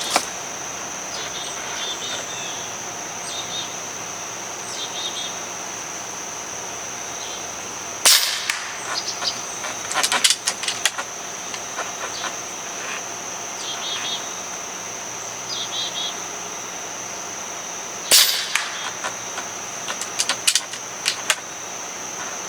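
Two shots from a .22 calibre Avenger regulated PCP air rifle, about ten seconds apart, each followed a couple of seconds later by a quick run of mechanical clicks as the action is cycled for the next pellet. A steady high-pitched drone runs underneath.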